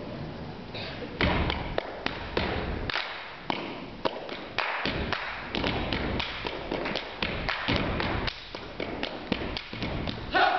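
Stage percussion performance: sharp hits and thumps in a loose, irregular rhythm, starting about a second in.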